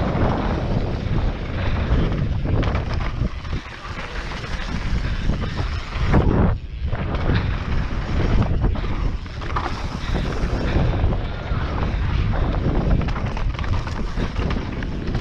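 Mountain bike descending a dirt trail at speed: tyres rolling and crunching over dirt and stones, with the bike knocking and rattling over bumps, mixed with wind buffeting the camera's microphone. A brief lull about six and a half seconds in.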